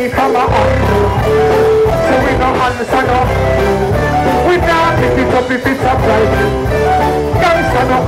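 Live reggae band playing loud through a PA with a strong bass line, and a vocalist singing into a microphone over it.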